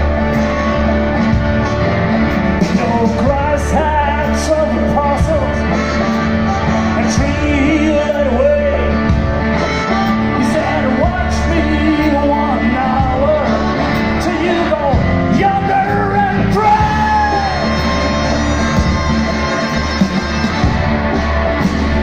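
Blues band playing live: singing over acoustic guitar, bass, drums and keyboard, with a harmonica.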